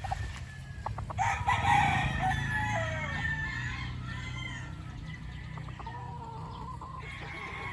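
A gamecock crows once, one long call starting about a second in and falling in pitch at its end. Fainter calls follow, over a steady low rumble.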